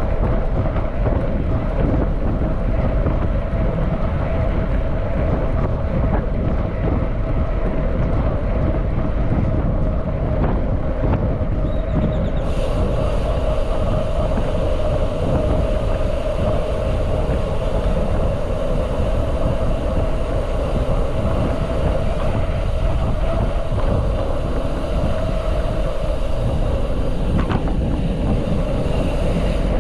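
Steady rush of wind on the microphone with a steady hum underneath, typical of a camera carried on a moving mountain bike.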